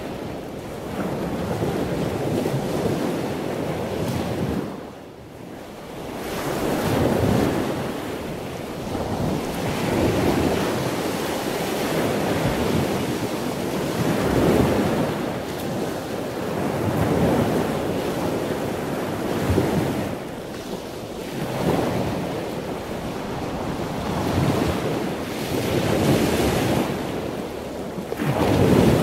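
Heavy storm surf breaking and washing up the beach, the rush swelling and easing every few seconds as waves come in. Wind buffets the microphone.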